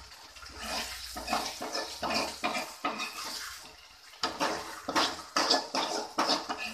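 A perforated metal skimmer stirring thick chicken gravy and scraping around a metal pot: wet squelching with irregular scrapes and knocks of the ladle on the pot.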